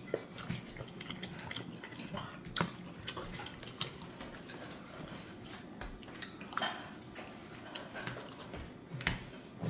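Cutlery clinking and tapping on plates during eating: scattered light clicks with a few sharper ones, fairly faint.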